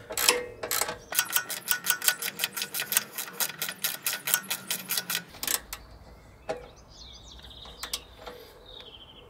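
Hand ratchet with a 13 mm socket clicking rapidly, about seven clicks a second, as it tightens the nut holding the new ride height sensor's link arm to the lower control arm. After about five seconds the run stops, leaving a few separate clicks.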